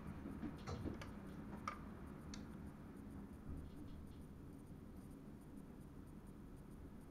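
Quiet low rumble inside the driver's cab of a running NS electric train, with a few sharp clicks in the first couple of seconds.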